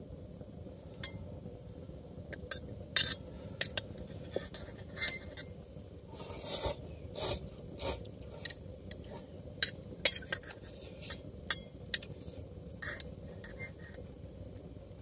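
Metal chopsticks clinking and scraping against a metal mess-tin lid used as a plate while eating ramen noodles: irregular sharp clicks, some in quick pairs, busiest in the middle stretch.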